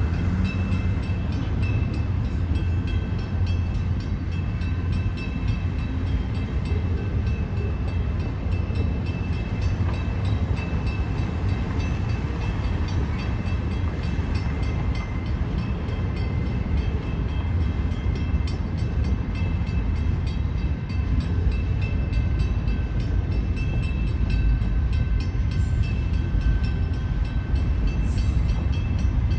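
Railway cars rolling past with a steady rumble of wheels on rails, and a faint high squeal that comes and goes.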